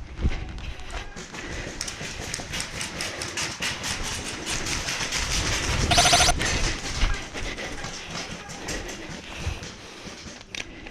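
Airsoft guns firing during a game: a string of sharp clicks and snaps, with a short, loud, rapid burst about six seconds in.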